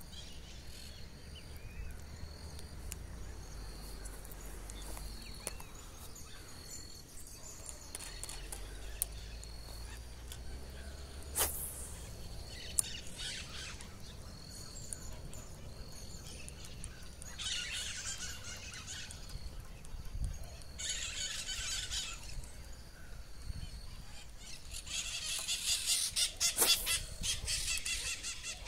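Birds calling: a short high chirp repeating steadily about once a second, then several harsher, noisy bursts of calls, the longest and loudest near the end.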